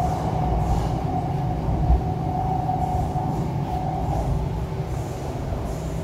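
Interior sound of an MTR East Rail Line R-Train electric multiple unit under way: a steady whine from the traction equipment over the low rumble of the wheels on the track.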